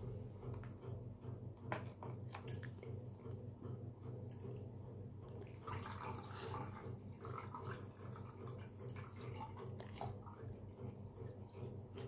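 Water poured into a clear plastic cup, splashing and trickling about six seconds in. A few light knocks of handling come before it.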